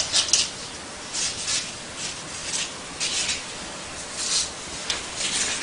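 A series of short scrapes and rustles, about seven in all, spaced roughly a second or less apart, as the model's small planets are pulled off their arms one by one.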